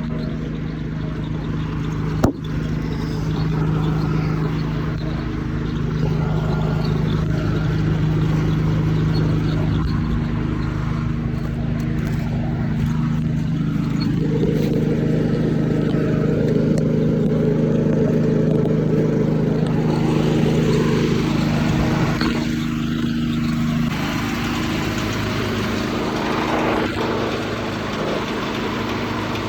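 Sawmill's Detroit Diesel 6-71 engine running steadily, muffled from inside an overall pocket, with a sharp click about two seconds in. For about seven seconds in the middle a heavier sound joins it and the level rises.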